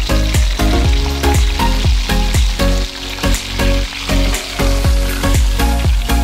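Breaded chicken deep-frying in a pot of hot oil, with a steady sizzle, under background music with a steady beat.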